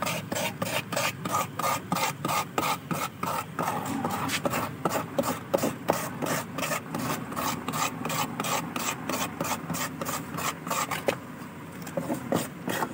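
A hand tool scraping the rubber inner liner of a tubeless tyre in quick back-and-forth strokes, about four a second, thinning out near the end. The rubber around the puncture is being levelled flat after machine grinding, so that the mushroom plug patch will seal without an air leak.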